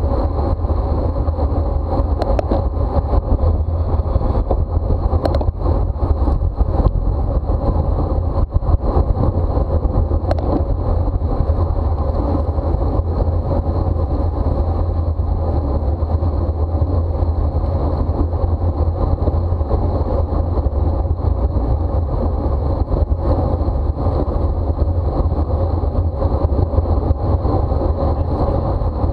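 Steady wind rumble over a bike-mounted camera's microphone during a criterium bicycle race at speed, mixed with tyre and road noise, with a few faint clicks in the first ten seconds.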